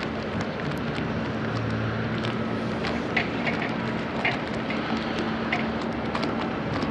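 Doosan DX160W wheeled excavator's diesel engine running steadily while it works, with a few short clinks and knocks in the middle, typical of loose material in the bucket.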